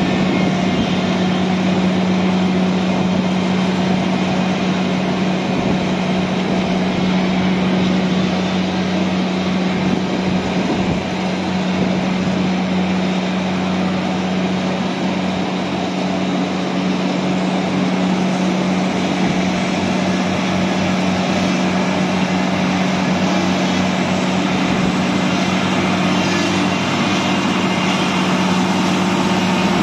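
CAT Kress pot carrier's diesel engine running with a steady drone as the machine drives. It is a little quieter around the middle and fuller again near the end.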